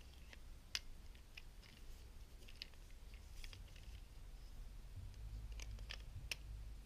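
Small plastic clicks and ticks from the parts of a Hasbro Transformers Agent Knight (KITT) figure being handled and moved, faint and irregular, with the sharpest clicks about a second in and near the end, over a steady low hum.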